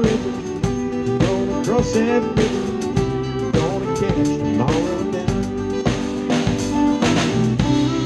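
Live band of drum kit, bass and guitar playing an instrumental passage of a country song. A lead line of sliding, bending notes runs over a steady beat.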